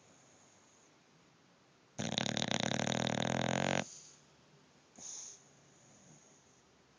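Bulldog snoring in its sleep: one long, fluttering snore about two seconds in, lasting nearly two seconds, then a short, fainter breath a little later.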